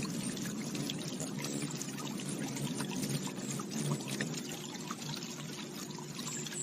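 Running water trickling and bubbling steadily, with many small splashy ticks.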